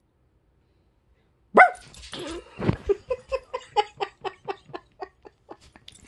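Barking: a sudden loud bark about a second and a half in, a woman's imitation of a dog, then a few more barks and a quick run of short barks that fade away.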